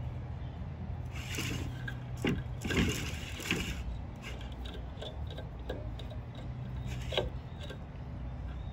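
Hands working monofilament fishing line around wooden dowel pegs on a pine board: rubbing and scraping handling noise, busiest between about one and four seconds in, with a few light clicks, over a steady low hum.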